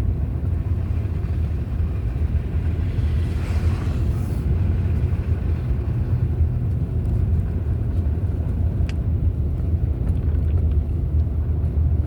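Steady low rumble of a car driving, heard from inside the cabin, with a brief hiss about three and a half seconds in.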